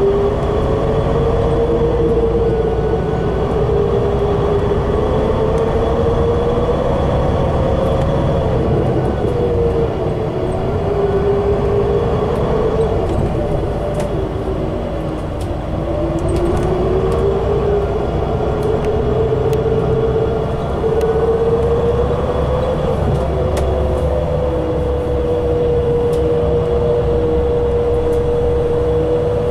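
Inside a 2016 Gillig BRT bus powered by a Cummins Westport natural-gas engine through an Allison B400R transmission, underway on the highway: a steady low drone under a whine that rises and falls as the speed changes.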